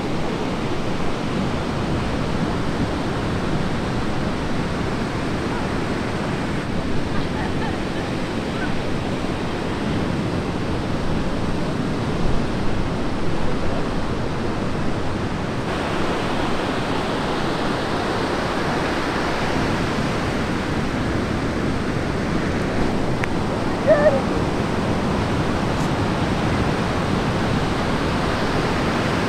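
Steady wash of heavy ocean surf breaking, an even noise with no let-up. About three quarters of the way through comes one brief high call.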